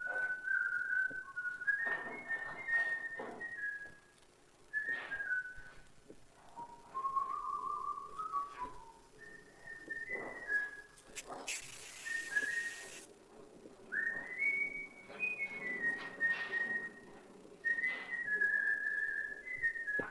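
A person whistling a tune, a string of held notes stepping up and down in pitch. Scattered knocks sound under it, and a sharp hiss lasts about a second and a half midway.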